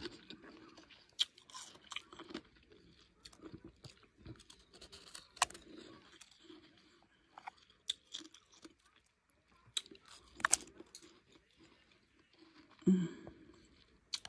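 Close-up crunching of a person chewing blender-crushed, powdery ice: irregular crunches with pauses between bites and a few sharper cracks. There is a short low sound near the end.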